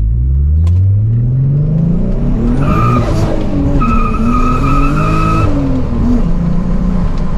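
Turbocharged VW VR6 engine accelerating hard under boost, its pitch climbing over the first couple of seconds. From about the middle, a steady high squeal runs for roughly three seconds, broken once, as the tires break loose.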